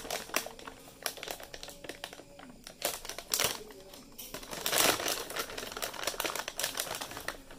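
Plastic packaging crinkling and rustling in bursts, with small clicks, as a sealed graphics card is unwrapped by hand.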